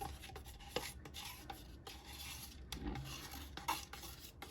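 Stirring a runny ResinCrete resin mix in a mixing cup: a quiet, irregular scraping of the stirrer against the cup, with a few small clicks.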